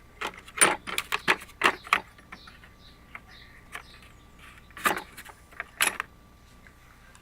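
Drill bits being taken out and handled: a quick run of sharp clicks and knocks of hard objects, then two more knocks about five and six seconds in.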